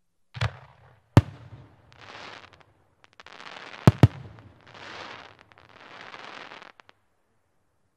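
A 5-inch aerial fireworks shell going off: several sharp bangs, two of them close together about four seconds in, and between them four crackling, rushing bursts of about a second each that die away near the end.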